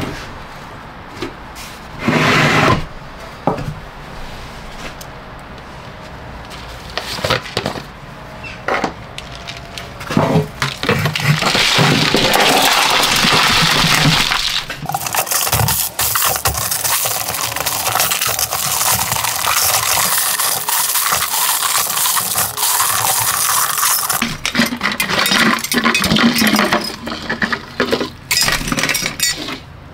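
Chunks of mixed metal slag and dross clinking and rattling against each other and against metal. There are separate knocks at first, a long stretch of continuous rattling in the middle, then scattered clinks again.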